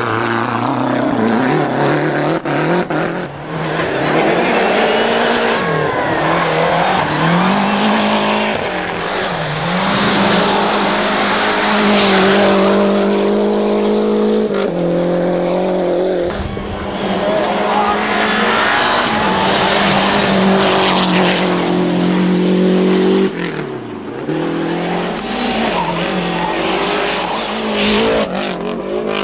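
Group A Lancia Delta rally cars' turbocharged 2.0-litre four-cylinder engines revving hard, the pitch climbing and dropping through repeated gear changes as the cars go by at full speed. The sound changes abruptly twice, about halfway through and again about three-quarters of the way through.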